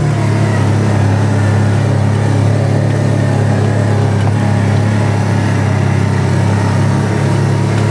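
Kawasaki Teryx 800 side-by-side on snow tracks, its V-twin engine running steadily as it drives along. The engine note drops slightly right at the start, then holds an even drone.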